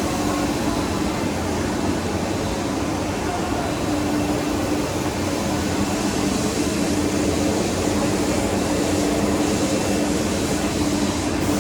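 Steady machine hum and hiss of workshop machinery, with a low droning tone that fades in and out every second or two.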